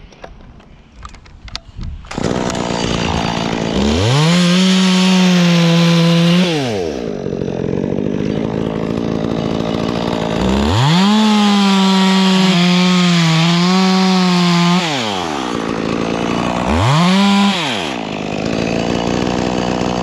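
Stihl two-stroke chainsaw that starts about two seconds in. It revs up to full throttle three times while cutting into a dead mountain ash trunk, for about three, four and one seconds, dropping back to idle in between.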